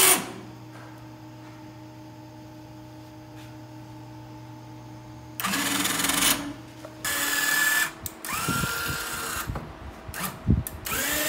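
A faint steady hum, then several short bursts of a small electric motor whirring, about five seconds in and again near the end; one burst rises in pitch and settles on a steady whine as the motor spins up.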